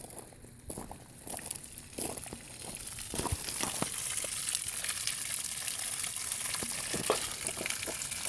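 Water from a garden hose hissing and spraying as it is turned on for flushing the outboard, growing louder over the first few seconds and then steady, with scattered clicks and knocks.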